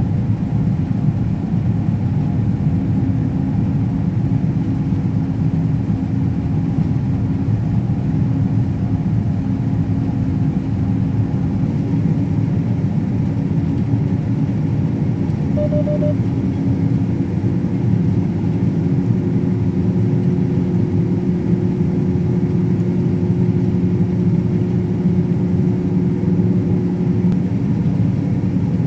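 Heavy diesel harvest machinery running steadily: a constant low engine drone with a steady hum over it. A brief high beep sounds about 16 seconds in.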